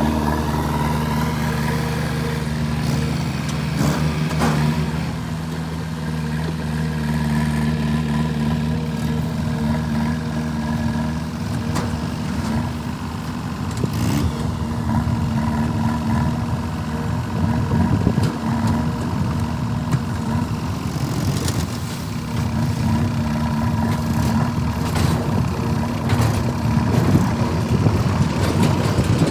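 Diesel engine of earth-moving machinery running steadily, its note turning rougher and more uneven about twelve seconds in as it works, with a few sharp metal knocks.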